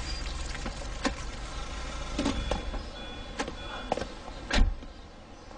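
A minivan's engine hum dies away as it comes to rest. Then come a few sharp clicks and knocks of its doors and handles, and one heavy car-door slam about four and a half seconds in.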